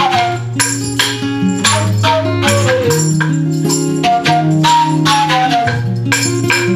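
Devil stick played as a percussion instrument: handsticks clacking sharply against the centre stick in a fast rhythm, over acoustic guitar and a wooden flute playing a descending melody.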